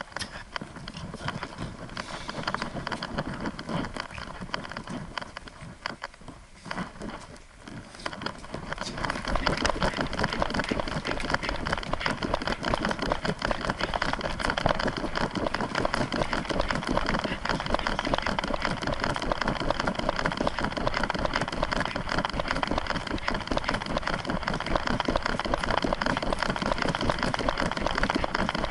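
Steady rustling, rattling noise of an action camera strapped to a walking French bulldog, the mount shaking and rubbing with the dog's movement. It grows louder about nine seconds in.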